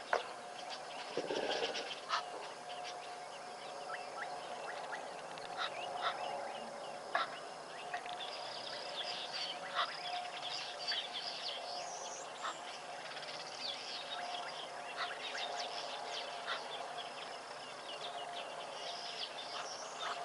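Wild birds chirping and calling in many short notes over a steady faint hum, with a few sharp clicks and a brief lower call about a second in.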